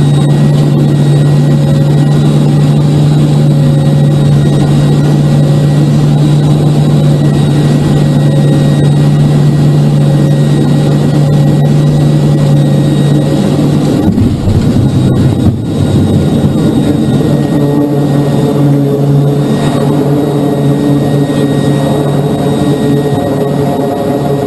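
Twin Allison T56 turboprops of a C-2A Greyhound heard from the cockpit, a loud steady propeller drone on final approach. About 14 s in comes a rough, rumbling jolt as the aircraft touches down in an arrested landing on the carrier deck, and after it the engine note changes, with several steadier higher tones as it comes to a halt.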